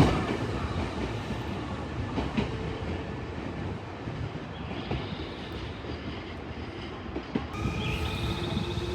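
Nankai electric train pulling out of the station, its wheels clacking over the rail joints above a steady rumble. A steady whine comes in near the end.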